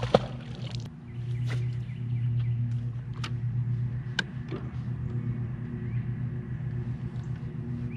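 Boat motor running with a steady low hum. A sharp knock sounds just after the start, and a few short clicks follow.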